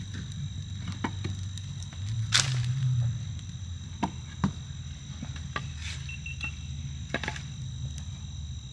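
A campfire of dry sticks and brush crackling, with scattered sharp pops and a louder crack about two and a half seconds in. Under it runs a steady high insect chorus.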